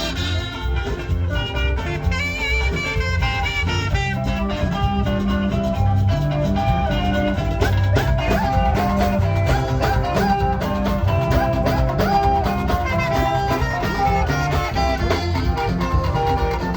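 Music: a saxophone playing a melody over a backing track with bass and drums.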